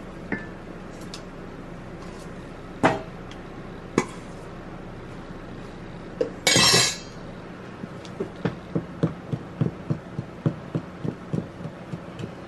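Wooden spoon knocking and scraping against a stainless steel mixing bowl as thick cake-like bun batter is stirred by hand. There are a few scattered knocks, then a brief loud rush of noise about halfway through as flour goes in, then steady stirring with about three knocks a second.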